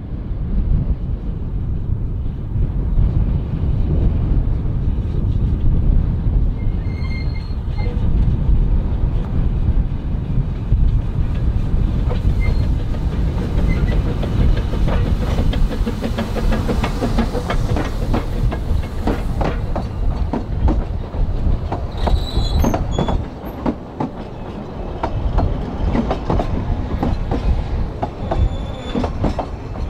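Narrow-gauge Double Fairlie steam locomotive and its coaches rumbling past close by, the wheels clicking over the rail joints more and more as the train draws level. There are brief high wheel squeals twice, about a third of the way in and again later.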